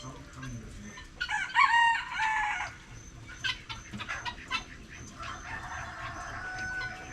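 A rooster crowing, a loud drawn-out crow starting about a second in and lasting about a second and a half, followed by a fainter, longer call later on, with chickens clucking around it.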